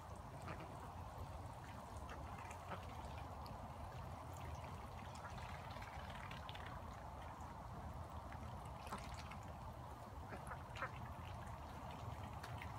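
Water running steadily from a garden hose, with ducks quacking softly now and then. Short sharp splashes and clicks come at scattered moments as the ducks drink from the running water.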